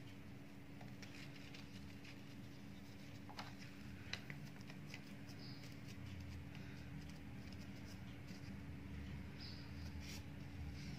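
Faint rustling, rubbing and light tapping of paper as a sheet of silver leaf on its paper backing is pressed by fingertips onto a tray of soft kalakand and then peeled away, with a few small clicks, over a steady low hum.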